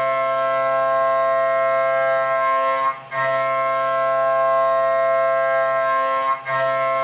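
A 1-inch Kennametal KOR 5 end mill taking a heavy roughing cut in metal on a DN Solutions DNM 5700L vertical machining centre. The cut gives a steady, many-pitched whine, which dips briefly twice, about three and six seconds in.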